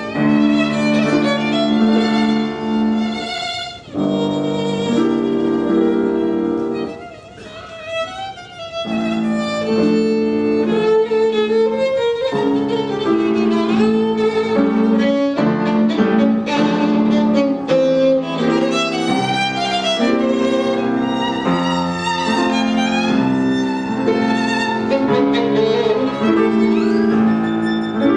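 A violin played with piano accompaniment in a classical recital: sustained bowed notes with vibrato. The music drops to a softer, thinner passage about seven seconds in, then returns to full sound.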